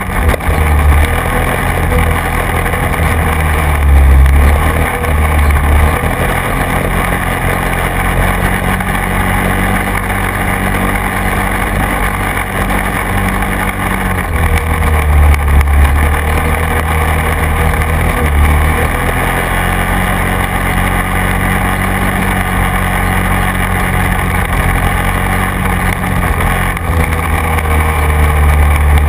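Quad bike (ATV) engine running as it drives along a rough field track, its note dropping and rising several times with the throttle, over a constant rushing noise.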